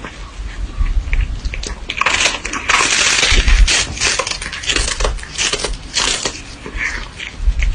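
A cat crunching a hard treat held in its paws: loud, close, irregular crunching bites, about two a second, most dense around three seconds in.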